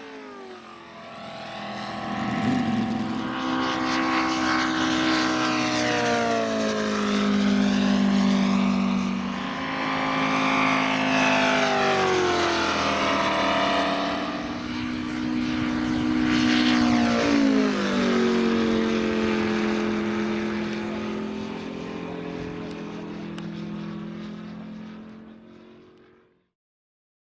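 Moki radial engines of giant-scale RC P-47 Thunderbolt models flying several passes. The engine note rises in pitch as each pass approaches and drops as it goes by, then fades and cuts off near the end.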